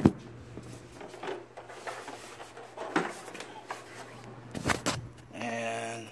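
Hard plastic knocks and clicks from a large Batwing toy replica being handled and its landing gear wheels worked, with a sharp knock right at the start the loudest, and two more about three seconds and nearly five seconds in.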